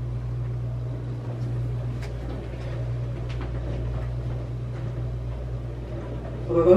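A steady low hum, with a few faint ticks.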